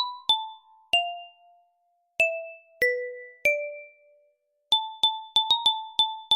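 Simple electronic melody of single bell-like struck notes, each fading quickly. A few notes come spaced out, then from near the middle a quick run of mostly repeated notes at the same pitch.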